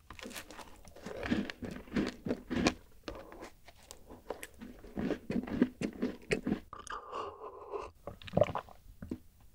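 Close-miked biting and chewing of crunchy rice-oat chocolate-chip cookies, with many irregular crunches. Near the end, gulps from a glass of milky drink.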